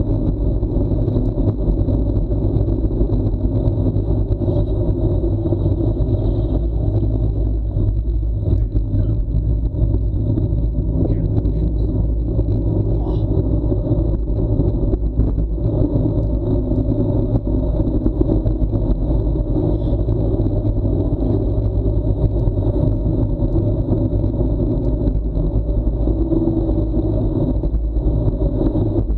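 Steady wind rumble on the action camera's microphone, mixed with tyre and road noise from a bicycle coasting fast downhill on asphalt at about 30–35 km/h.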